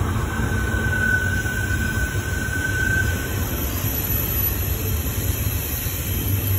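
Double-stack intermodal freight cars rolling past on a curve: a steady low rumble of steel wheels on rail. A faint, high wheel squeal sounds from about half a second in for some three seconds.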